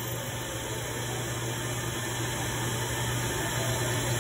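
Minute Key self-service key kiosk running while it cuts a duplicate key: a steady mechanical whirring hum that grows slightly louder.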